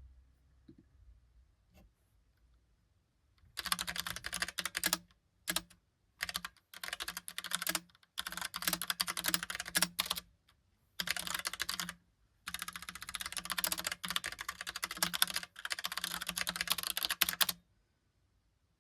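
Fast typing on a Logitech POP Keys mechanical keyboard, its keys clacking in bursts of several seconds with brief pauses between them, starting a few seconds in and stopping near the end.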